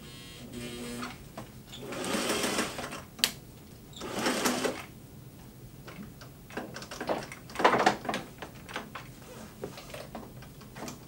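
Singer 503A 'Rocketeer' sewing machine running in several short stop-start bursts with clicks between, as it has trouble getting the seam started.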